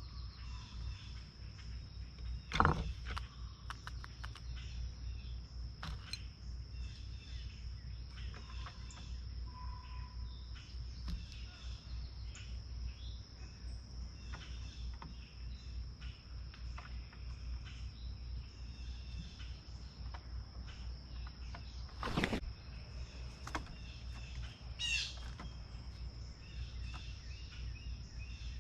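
Outdoor ambience at a bird feeder: a steady high insect drone under scattered short bird chirps and a low rumble. Two sharp knocks, one about two and a half seconds in and one near 22 seconds, and a single falling bird call a few seconds before the end.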